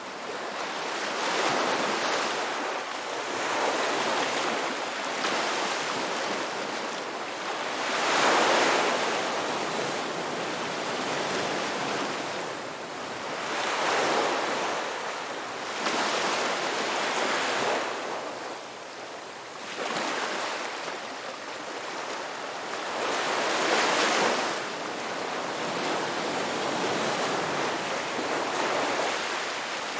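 Ocean waves breaking and washing up on a beach, the surf swelling and fading in slow surges every few seconds, loudest about a third of the way in and again near the end.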